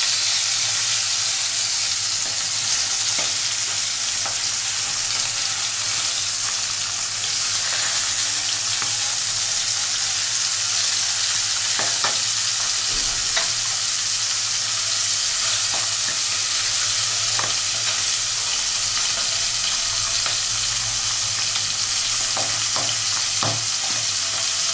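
Tilapia pieces frying in hot mustard oil in a pan: a steady, high sizzle, with a few light knocks now and then.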